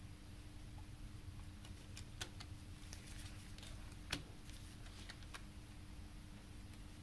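Light plastic clicks and taps of a CD and its jewel case being handled as the disc is set back into the tray and the case moved, the two sharpest clicks about two and four seconds in.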